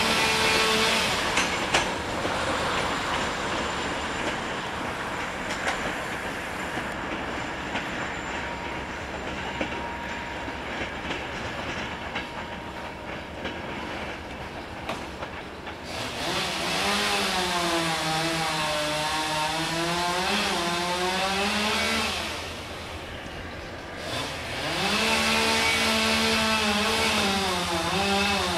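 Passenger coaches rolling over rail joints and points with a rushing noise and irregular wheel clicks. About halfway through, the GM-engined Class 65 diesel-electric locomotive's engine is heard working under load as the train pulls away: a deep droning note that rises and falls, dips for a couple of seconds, then comes back strongly.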